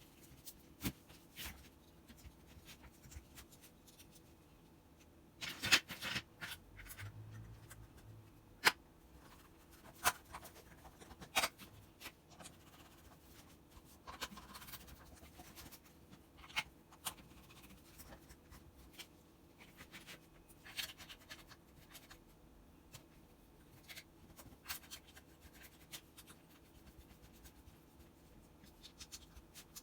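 Small parts and hand tools being handled and set down during a hammer drill repair: scattered clicks, taps and light scraping, with a louder cluster of knocks about six seconds in and two sharp clicks a few seconds apart soon after.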